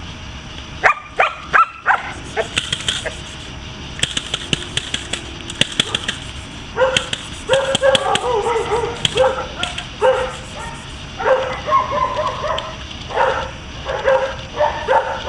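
Belgian Malinois barking in drive at a helper's bite pillow: a couple of sharp barks about a second in, then from about halfway a rapid run of short barks. Some sharp clicks come in between.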